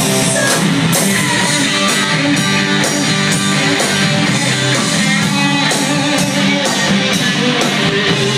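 Live band playing, with electric guitar, bass notes and a steady drum beat.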